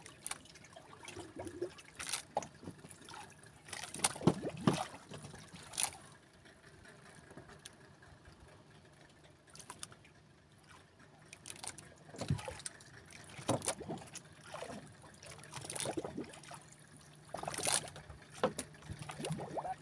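Small splashes and trickling water at the side of a small wooden boat, with irregular knocks and handling noises as a fishing handline is worked by hand.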